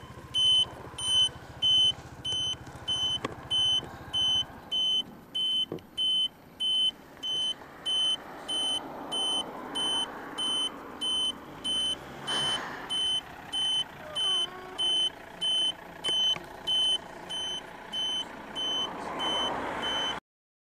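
A scooter's indicator beeper sounding a steady high beep about one and a third times a second. Under it the Honda PCX's engine and road noise die away about four seconds in as the scooter stops, and a car's engine rises near the end as it pulls up close.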